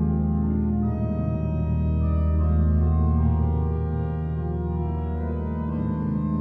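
Pipe organ, the Salisbury Cathedral organ sample set played through Hauptwerk, sounding slow sustained chords over a held low pedal note. Brighter upper notes join about a second in.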